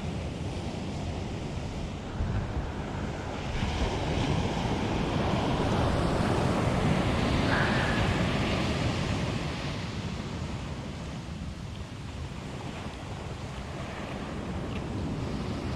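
Ocean surf breaking and washing up the beach, swelling about four seconds in and easing off later, with wind buffeting the microphone.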